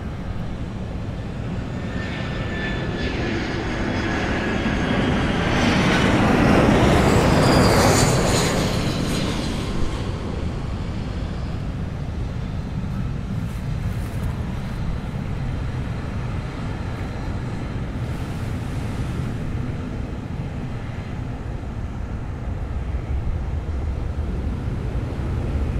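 Boeing 777-300ER's GE90 turbofan engines at taxi power as the jet passes: a jet whine and rumble that grows to its loudest about seven seconds in, its turbine tones falling in pitch, then settles to a steady low rumble.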